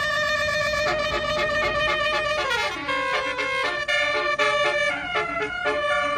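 Tour bus basuri horn playing a melody: a fast run of loud, stepping horn notes.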